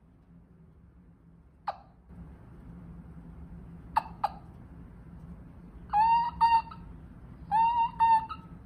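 A wingbone turkey call sucked by mouth, imitating a hen turkey: a single sharp cluck, then two quick clucks about four seconds in, then two short runs of about three yelps each near the end.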